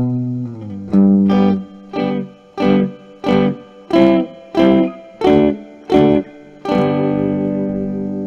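Guitar music: chords struck in a steady rhythm about twice a second, then a final chord held and left ringing near the end.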